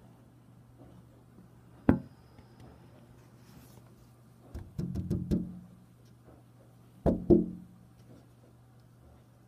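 Sharp knocks: a single one about two seconds in, a quick run of taps around the middle, and a double knock near the end, over a low steady hum.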